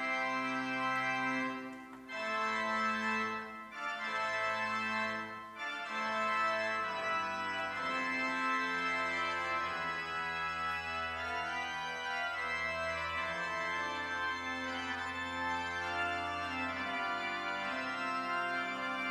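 Church organ playing slow, sustained chords, with short breaks between phrases in the first few seconds and a low bass note held through the middle.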